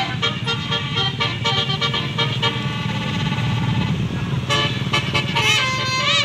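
Bus basuri (telolet) musical air horn playing a quick melody of short notes, then a held chord, then two whooping rising-and-falling notes near the end, over a low rumble.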